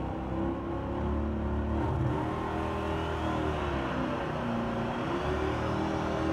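Diesel pulling pickup's engine revving hard at the start of a truck pull, pouring black smoke as it builds boost. From about two seconds in, a high whistle rises steadily in pitch as the turbocharger spools up.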